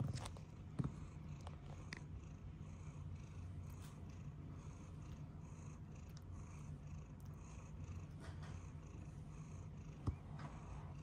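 Domestic cat purring steadily and close up, with two brief clicks, one about a second in and one near the end.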